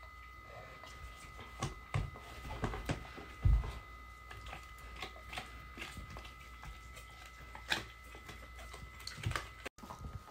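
An Old English Sheepdog and a poodle gnawing on bully sticks: scattered soft clicks and crunches of teeth on the dried chews, with one dull thump about three and a half seconds in.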